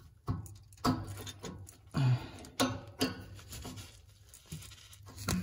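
Rubber exhaust hanger being levered off its steel hanger rod with large Knipex pliers: rubbing and knocking of rubber, pliers and metal in several short bursts.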